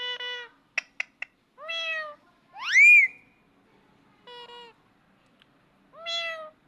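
A parrot imitating a cat's meow, giving a series of short meow-like calls. About a second in come three quick clicks, and about three seconds in a louder call that rises steeply in pitch.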